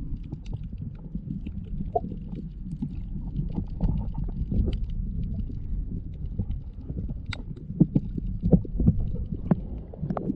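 Muffled underwater sound from a GoPro in its waterproof housing while swimming: a low rumble of moving water with scattered sharp clicks and knocks, the sharpest about seven seconds in.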